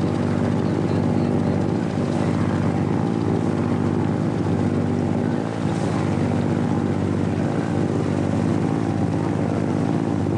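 A boat's engine running steadily: a low, even drone with an unchanging pitch, heard from on board.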